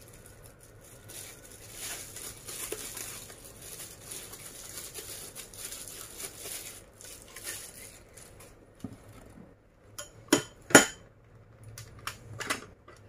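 Plastic packaging rustling as it is unwrapped, then a few sharp clacks of hard plastic parts being handled near the end.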